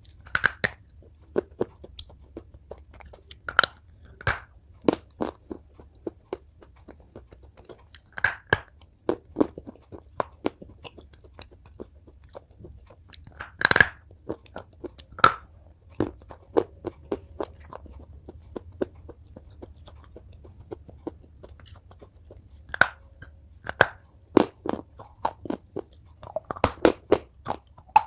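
Close-up biting and chewing of hard slate pencil pieces, each bite a sharp crunch, coming at irregular intervals about a second or two apart. The loudest bite falls about halfway through, and the crunches come faster near the end.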